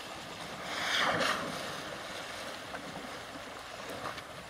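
Water splashing and sloshing as an Asian elephant thrashes in a canal, with a louder burst of splashing about a second in, then steadier churning of the water.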